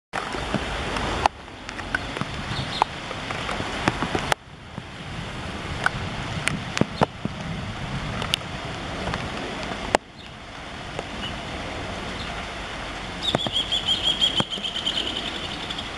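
Distant, steady roar of a Boeing 737-800's CFM56 jet engines as the airliner climbs out after takeoff, mixed with wind noise. Sharp clicks throughout, and a high, wavering, pulsing whistle over the last few seconds.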